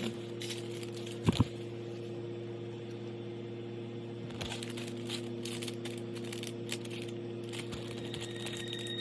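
Album packaging being handled during an unboxing: faint crinkling and light clicks of plastic and paper over a steady low hum, with one knock about a second in.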